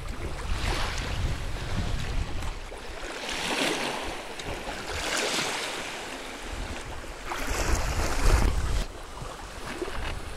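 Lake water splashing and washing around a canoe in the shallows, rising and falling in swells of hiss every couple of seconds, with wind buffeting the microphone at times.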